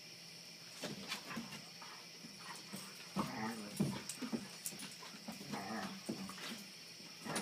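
Two dogs play-fighting, giving short, repeated vocalizations in bouts from about a second in, with a steady high insect chorus behind them.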